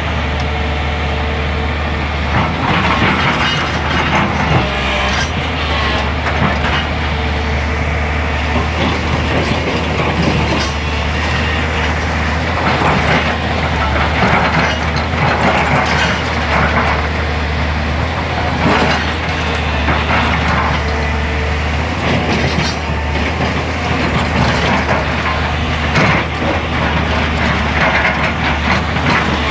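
Excavator engine running steadily under a constant low hum, with irregular clattering and scraping of stones and rock being moved.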